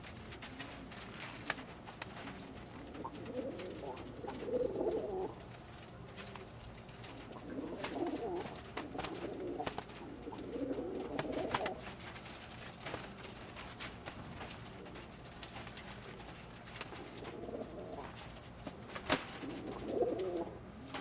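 Old German Owl pigeons cooing in several low, warbling bouts, the display calls of males fighting over females, with scattered sharp clicks between.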